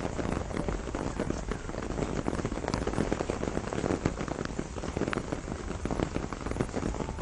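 Steady rain shower falling, with many distinct drops pattering on leaves and surfaces.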